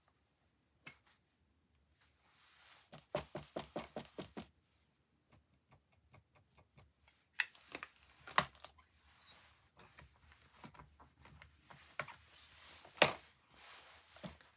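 Light clicks and taps of acrylic stamps, paper and a stamping platform being handled on a craft desk: a quick run of small clicks, a few sharper ones later, and one loud click near the end.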